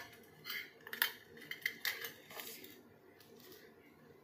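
Scattered light clicks and taps of kitchen things being handled and set down on a stone counter: a plate holding steel measuring cups and spoons, then a plastic chopping board. The clicks come in the first couple of seconds and die down after.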